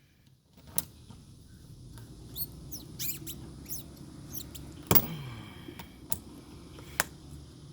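Pliers working a large screw out of a tire: several sharp metal clicks a second or more apart, and a run of short, high squeaks in the middle.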